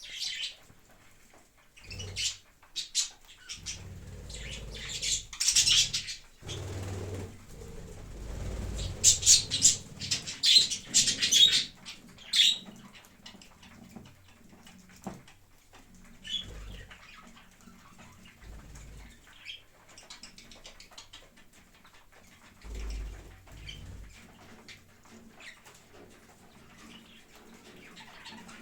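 Pet green parrot flapping its wings and making sharp chirps and squawks. The sounds come in two loud spells in the first half, then quieter scattered calls and rustles.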